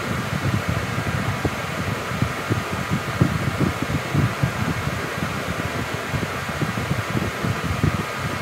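Steady whir of a fan running, with a fluttering low rumble underneath and a few faint steady tones.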